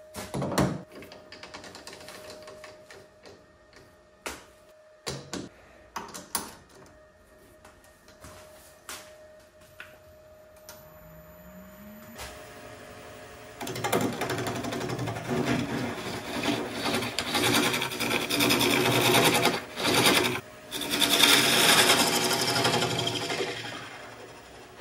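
Metal clicks and knocks as a chuck is threaded onto a wood lathe's spindle and a blank is clamped in it. Just before halfway the lathe spins up with a short rising whine. Then a gouge cuts the spinning blank of hawthorn burl cast in epoxy resin, a loud, rough, uneven scraping that eases off near the end.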